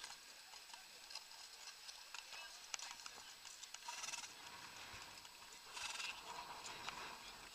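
Horses' hooves clip-clopping on a gravel track, faint scattered irregular clicks, with a couple of brief rushes of noise about four and six seconds in.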